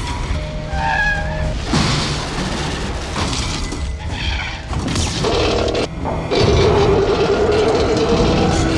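Action-film sound mix of a crash: booms and clattering, shattering wreckage from a burning helicopter crash and a heavy truck driving on, under a music score. A long wavering tone runs through the second half.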